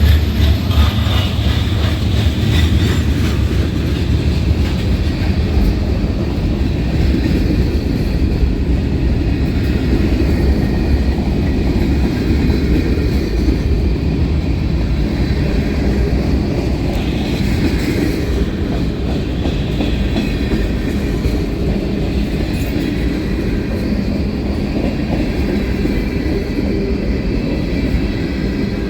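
Freight cars of a Union Pacific manifest train rolling past, steel wheels on the rails making a steady, unbroken rumble.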